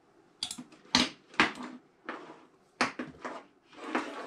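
Air hoses and metal fittings of an airgun booster pump kit handled and connected on a tabletop: an uneven run of sharp clicks and knocks, with a longer one near the end.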